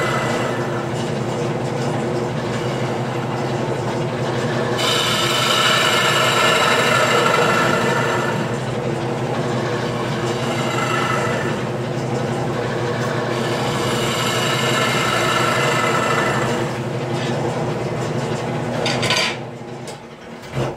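Wood lathe running with a steady motor hum while a bowl gouge rough-cuts a wet mulberry bowl, the cutting noise swelling in several passes as shavings peel off. Near the end the lathe is switched off and the sound dies away.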